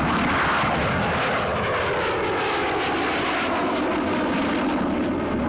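English Electric Canberra jet bomber flying past low overhead, its twin Rolls-Royce Avon turbojets making a loud, steady jet noise. A whine in the noise falls in pitch as the aircraft passes.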